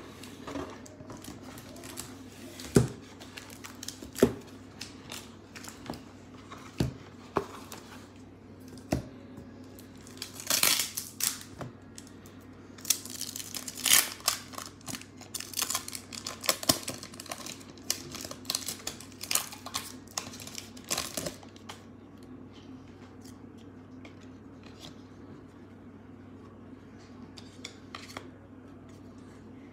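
A foil-wrapped trading card pack being handled and torn open by hand. There are a few sharp knocks in the first several seconds, then a long stretch of crinkling and tearing of the foil wrapper from about ten seconds in, and only faint handling in the last several seconds.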